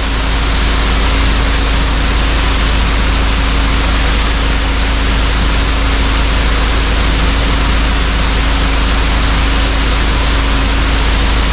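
Small waterfall rushing: a loud, steady wash of falling water, with a steady low hum beneath it.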